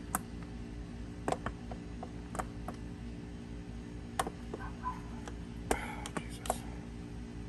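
Irregular light clicks and knocks, about ten of them, as a replacement starter motor and its mounting parts are handled and fitted against the powerhead of a 1996 Evinrude 150 outboard, over a steady low hum.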